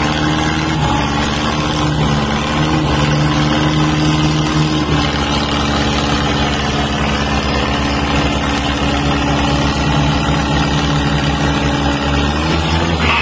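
Diesel tractor engine running steadily, its pitch rising slightly near the end.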